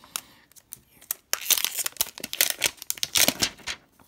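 Thin plastic film crinkling and tearing as it is peeled off a new smartphone: a dense run of crackles that starts about a second in and stops shortly before the end.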